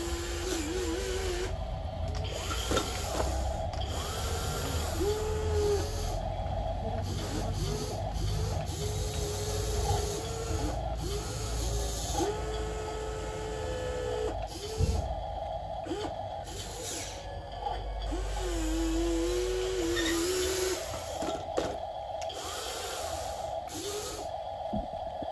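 Small electric motors of a remote-controlled toy excavator whining as the boom, arm and bucket move, in short stop-start runs whose pitch rises and falls with a few sharp clicks between.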